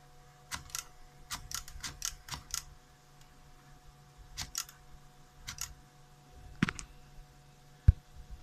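Antares portable manual typewriter being typed on: irregular sharp keystrokes in small clusters, with one louder low thud near the end. The machine is being tried out with a rubber band standing in for the ribbon holder's missing return spring.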